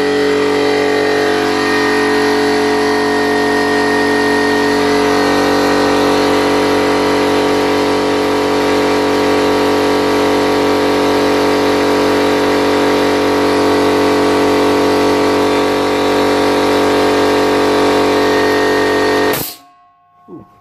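ALDI electric piston air compressor, its head gasket newly replaced, running steadily as it pumps up the tank. Near the end it cuts off suddenly with a brief sharp burst, the pressure switch tripping and the unloader valve releasing, followed by a couple of small clicks.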